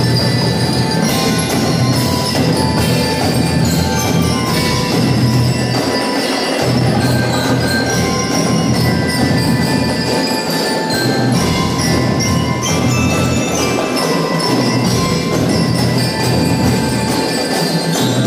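Drum and lyre corps playing: bell lyres ringing a melody over a steady beat of drums, heard live in a large gymnasium.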